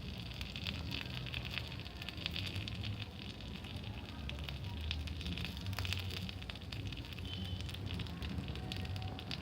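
Bonfire burning and crackling, with scattered sharp pops over a steady low rumble.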